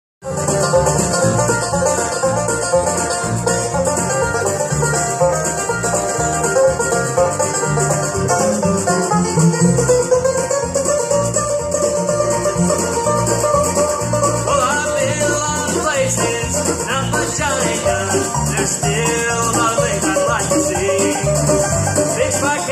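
Live bluegrass band playing an instrumental passage: banjo, fiddle, mandolin and guitar over a steady beat, with no singing. The fiddle's sliding lines come forward from about two-thirds of the way in.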